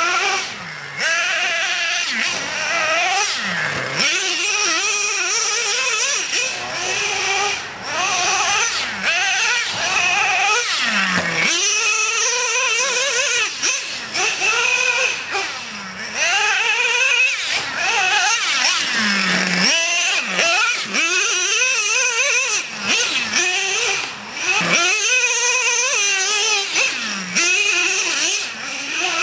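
Traxxas Revo radio-controlled monster truck's small nitro engine revving hard and backing off over and over, its pitch sweeping up and down, dropping low a few times.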